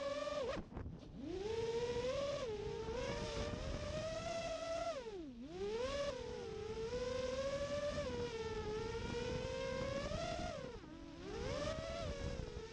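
FPV quadcopter's brushless motors spinning DAL Cyclone 5050C props in flight, a whine whose pitch rises and falls with the throttle. It dips low three times: near the start, about halfway, and near the end.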